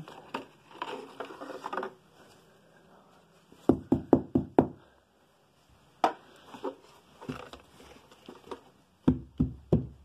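Hard plastic knocks and clicks from the dirt cup and filter of a Hoover WidePath bagless upright vacuum being handled. A quick run of four knocks comes about four seconds in, a few single clicks follow, and another cluster of knocks comes near the end.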